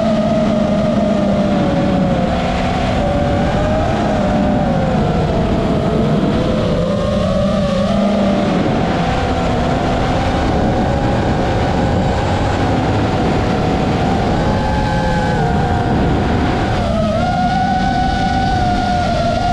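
FPV quadcopter's motors and propellers whining, the pitch rising and falling with throttle; near the end the pitch drops briefly, then climbs again.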